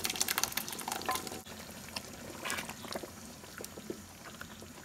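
Thick spinach purée being poured into a wok of simmering meatball gravy, with wet splattering and crackling. About a second and a half in it settles to a quieter bubbling simmer with scattered pops as the mixture is stirred with a wooden spoon.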